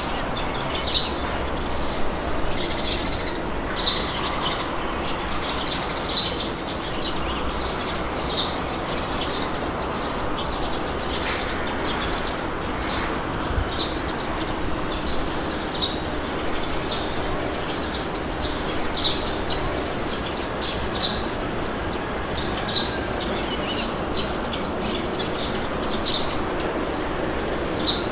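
Steady rushing wind with birds chirping over it in short, high chirps every second or two.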